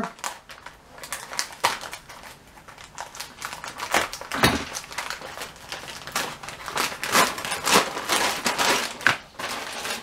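White plastic poly mailer being pulled open and crinkled by hand, with the clear plastic bag inside rustling as it comes out: irregular crackling and rustling, sparse at first and busiest in the second half.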